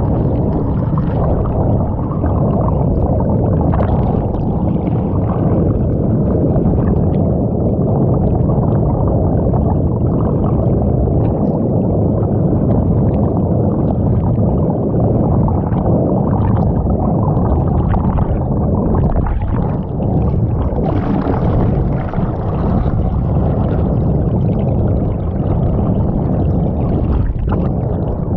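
Muffled, steady rushing and gurgling of water heard through a camera submerged underwater.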